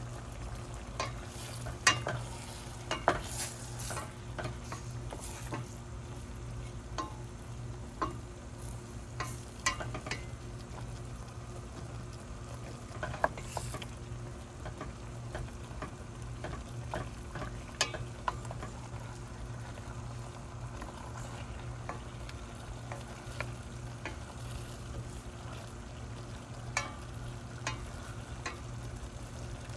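Food sizzling in a frying pan while a utensil stirs it, with scattered sharp clicks and scrapes of the utensil against the pan over a steady low hum.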